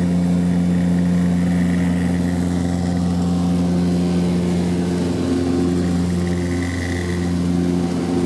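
Twin Rolls-Royce Dart turboprops of a Hawker Siddeley HS.748 running steadily during the climb after takeoff, heard inside the cabin: a loud, even drone with a high engine whine that fades out a couple of seconds in and returns briefly near the end.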